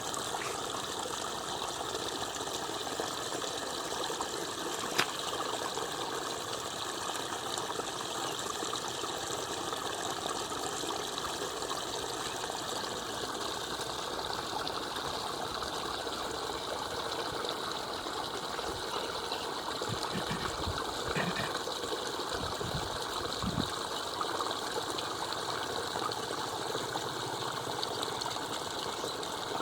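Steady rush of flowing water, with a sharp click about five seconds in and a few short low thumps past the middle.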